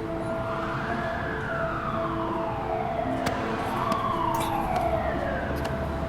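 An emergency-vehicle siren wailing, its pitch rising and then falling slowly, twice.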